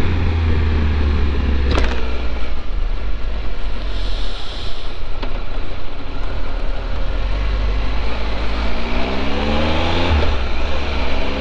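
Triumph Tiger 1200's three-cylinder engine running on the move, over a steady low rumble of road and wind noise picked up by a helmet camera. Near the end the engine note rises twice as the bike accelerates, with a brief dip between the two rises that fits a gear change.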